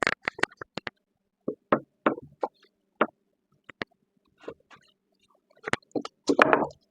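Scattered knocks and clicks of a cedar fence picket and tools being handled at a miter saw, with a busier cluster near the start and again near the end.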